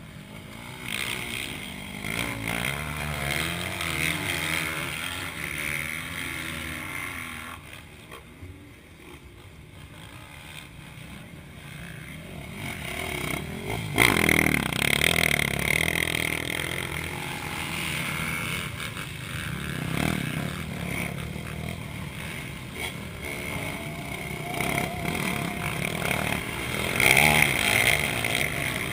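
Several motocross bikes revving hard and passing through a dirt corner, their engines rising and falling as they come and go. One bike passes close about halfway through, with a sharp jump in loudness, and another loud pass comes near the end.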